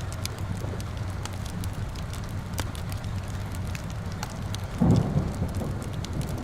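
Steady rain with a wood fire crackling in sharp scattered pops, and a brief low rumble about five seconds in.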